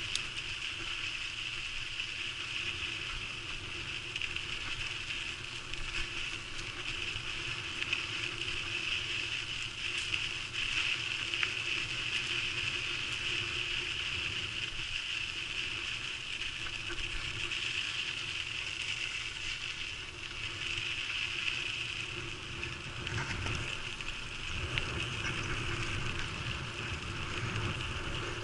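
Bicycle rolling along a dirt trail, picked up by a camera carried on the ride: a steady rush of tyre and rattle noise with a constant high hiss.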